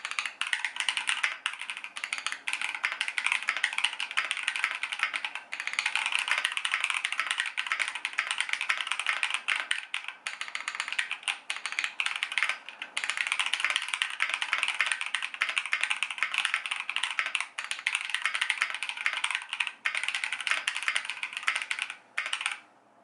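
Custom mechanical keyboard with Holy Panda tactile switches lubed with Tribosys 3204, in a KBDfans 5 degree case, being typed on fast and continuously, with a few brief pauses; the typing stops shortly before the end.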